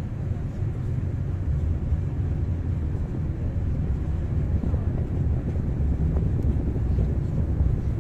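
Steady low rumble of a small boat under way on a lake, with wind buffeting the microphone.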